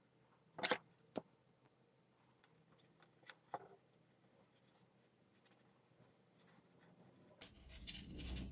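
A few sharp clicks and small handling noises, the loudest about a second in, with a low rumbling noise coming in near the end.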